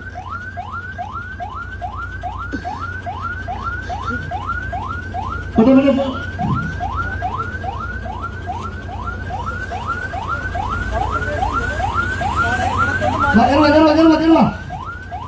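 Bus's electronic siren horn sounding a rising whoop, repeated about three times a second without a break. Near the end a second, lower horn tone briefly joins in over it.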